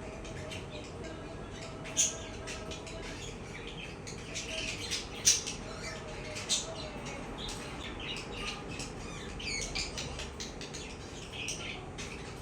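Budgerigar chirping and squawking in a busy run of short, high calls, with a few sharper, louder squawks standing out.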